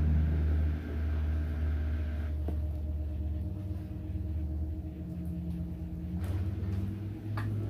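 Slime softened with added glue being kneaded, stretched and squeezed by hand, making wet, sticky squishing sounds, over a steady low hum.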